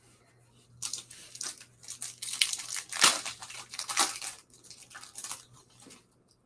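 Foil wrapper of a 2001 SP Game Bat Milestone Edition baseball card pack being torn open and crumpled by hand. The crackling tear starts about a second in, is loudest about three and four seconds in, and fades near the end.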